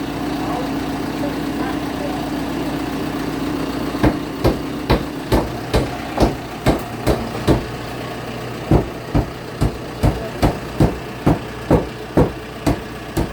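A heavy engine idling steadily. About four seconds in, a run of sharp, evenly spaced knocks begins at about two a second, pauses briefly, then resumes for another ten or so strikes.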